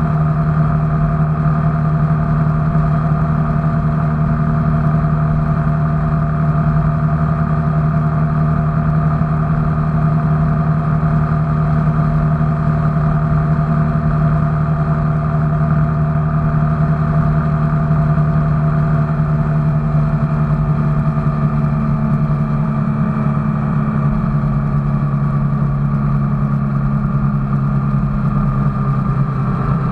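An engine running steadily at an even pitch, which sinks slightly over the last several seconds.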